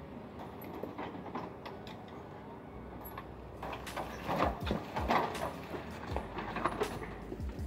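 Riding mower being pushed and steered by hand, its chassis giving off irregular knocks and rattles, busiest in the middle and again near the end.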